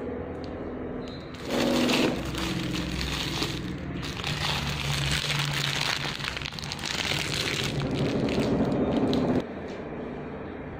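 Clear plastic packaging crinkling and crackling as it is handled close to the microphone, starting about a second and a half in and cutting off suddenly near the end.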